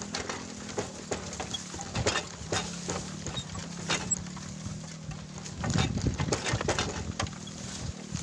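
Footsteps on a narrow dirt and grass footpath, irregular scuffs and thuds with grass brushing, busiest about six seconds in.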